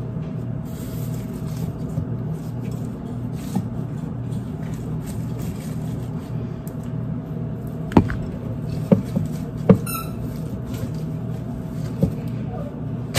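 Scattered sharp clicks and knocks from flowers and stems being handled, with a quick rising squeak about ten seconds in, over a steady low hum.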